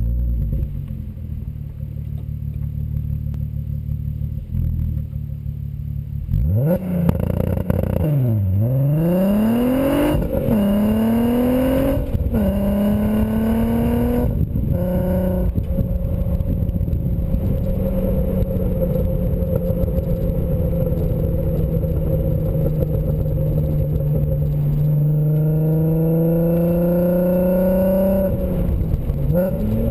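2004 VW R32's 3.2-litre VR6 engine heard through a BlueFlame non-resonated cat-back exhaust while driving. It gives a low rumble at first, then revs up and falls back several times through gear changes, holds a steady drone at cruise, and climbs in revs again near the end.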